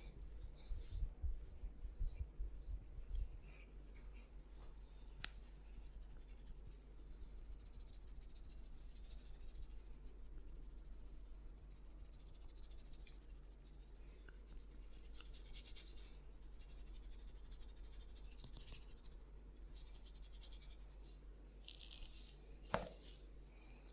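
Hands massaging oiled skin and hair: soft rubbing and rustling, with a few low thumps in the first few seconds and a single sharp click near the end.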